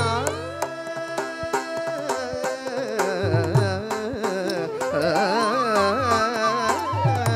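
Live Carnatic music ensemble: a sliding, heavily ornamented melody over mridangam strokes, with sharp clicks throughout. The drum strokes drop out for a while after the start and return in the middle and again near the end.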